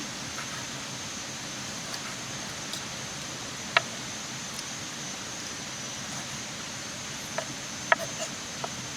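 Open wood fire crackling: a steady hiss with scattered sharp pops, the loudest about four seconds in and a quick cluster near the end.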